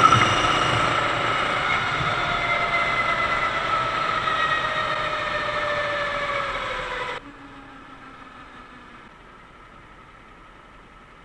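Sodi kart's 390cc four-stroke engine running as the kart slows, its pitch falling steadily. About seven seconds in the sound drops away abruptly, leaving only a faint low hum.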